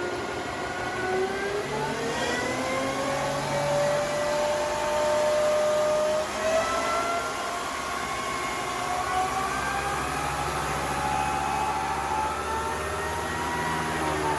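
Electric motorcycle under acceleration: the whine of its Golden Motor electric motor and shaft-drive drivetrain rises steadily in pitch over a rush of wind and road noise. About six seconds in the whine breaks off, then climbs again.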